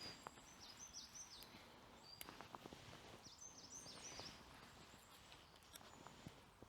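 Faint woodland birdsong: short high chirps that slide down in pitch, in a cluster about a second in and another between three and four seconds in, over quiet outdoor ambience with a few soft clicks and rustles.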